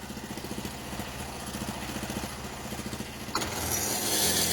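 A small engine idling with a fast, even pulse. About three and a half seconds in, a sudden louder, noisy sound starts and carries on.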